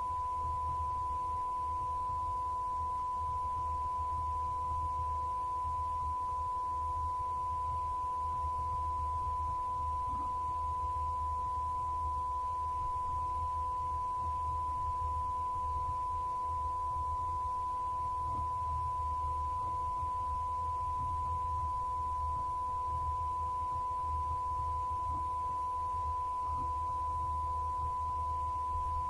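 A steady, unbroken electronic test-tone beep of one fixed pitch, like a censor bleep held on, over a fainter lower tone and a low hum.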